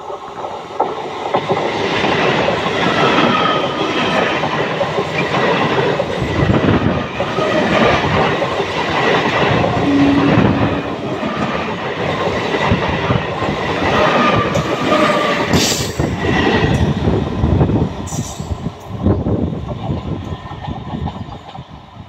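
Indian Railways ICF electric multiple unit (EMU) local train passing close by, wheels clattering over the rails with some wheel squeal. The noise dies down near the end as the train moves off.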